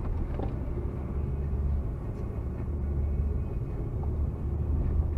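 Steady low road and engine rumble of a car moving at highway speed, heard from inside the cabin.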